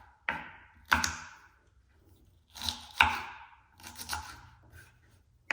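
Knife chopping celery stalks on a cutting board: about half a dozen separate, irregular cuts, each a sharp crunch with a short crackle.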